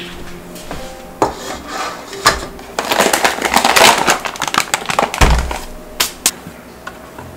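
Metal springform cake pan being handled on a counter while it is floured: scattered knocks, then a dense stretch of rattling and tapping as flour is shaken around inside the pan, and a heavy thump a little after five seconds. Soft background music underneath.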